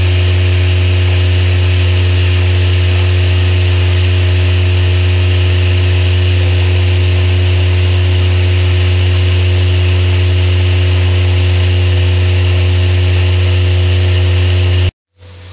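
Pneumatic pellet conveyor running at full suction, its nozzle drawing pellets from the heap: a loud, even machine hum with a steady hiss. It cuts off abruptly near the end.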